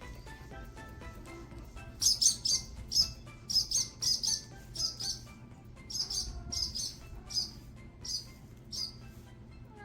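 Short high bird chirps repeating about twice a second, starting about two seconds in, over soft music made of single held notes.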